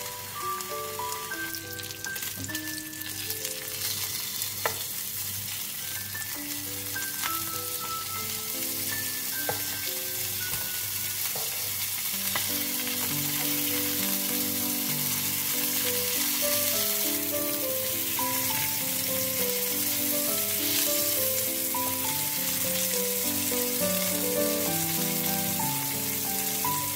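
Bacon-wrapped bread rolls sizzling as they fry in a pan, the sizzle growing louder in the second half, under light background music. A few sharp clicks sound in the first half.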